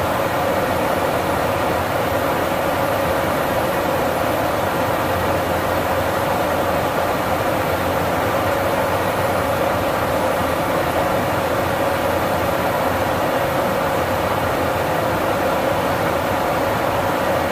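Steady jet aircraft cabin noise in flight: engine and airflow drone with a constant hum, unchanging throughout.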